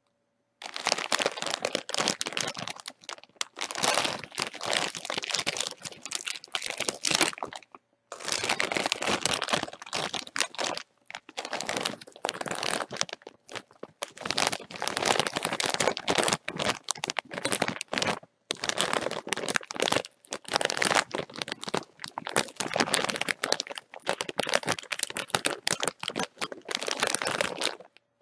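Plastic-foil bag of chips being crinkled and crumpled by hand in bouts of a few seconds, with brief pauses between them.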